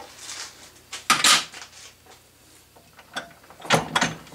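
Two short bursts of metal clatter and clicks, about a second in and again near the end. This is metal parts being handled at a lathe's spindle nose; the last burst comes as the newly made thread protector screwed onto the spindle of a 12-inch Atlas/Craftsman lathe is gripped and turned by hand.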